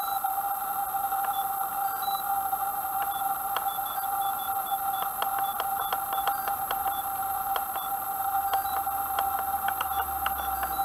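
Steady electronic whine of several fixed tones with irregular short high blips and clicks, electrical interference picked up on the hexacopter camera's audio; no rotor noise.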